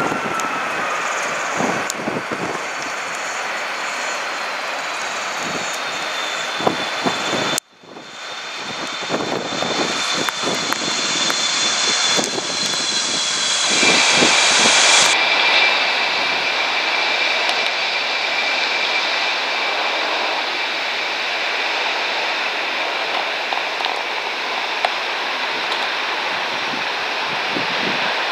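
Boeing 757 jet engines on approach and landing: a steady roar with a high whine that slowly glides down in pitch. A sudden brief dropout comes about a quarter of the way in. The roar then builds to its loudest about halfway through and settles into a steady roar as the jet rolls along the runway.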